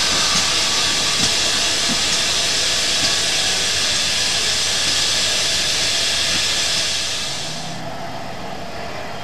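Steam locomotive hissing steam, a loud, steady hiss that cuts off suddenly about eight seconds in.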